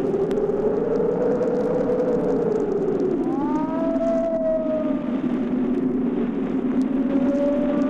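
Eerie sound effect from a 1961 spooky sound-effects record: a low rushing noise swells and falls, then about three seconds in a wavering, whistle-like tone with overtones glides up and slowly sags.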